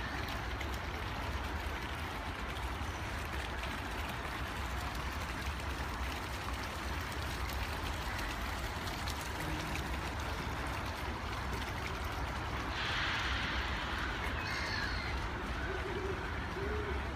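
Steady outdoor background noise in a busy amusement park: faint distant voices over a low rumble and hiss, with a short swell of hiss about thirteen seconds in.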